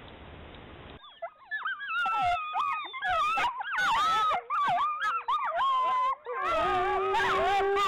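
Gray wolf pack, adults and pups, howling in chorus: after about a second of faint hiss, many overlapping calls rise and fall and waver, and from about six seconds in one long steady howl holds beneath the others.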